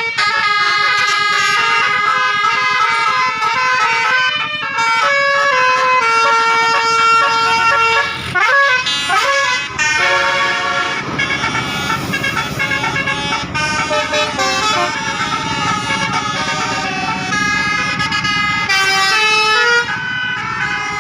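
Basuri telolet multi-trumpet air horn on a bus playing a melody of stepped, sustained notes. About eight seconds in there is a brief siren-like sweep, and a low rumble runs underneath in the second half.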